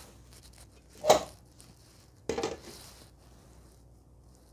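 Glass lid being set onto a frying pan: a sharp clatter about a second in, then a short rattle of knocks just over a second later.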